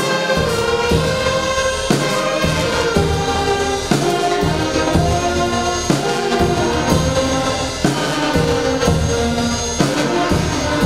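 Loud celebratory band music with brass and a steady beat, starting suddenly right on the end of a countdown.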